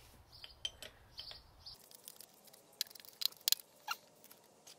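Faint scattered clicks and small squeaks from a hydraulic bottle-jack press as a new clutch release bearing is pressed onto its carrier, most of them about three seconds in. A low hum stops about two seconds in.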